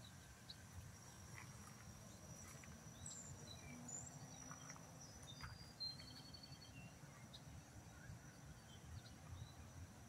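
Near-silent outdoor ambience with a low rumble, a thin steady high whine that fades out about halfway through, and a few faint, short bird chirps, mostly in the middle.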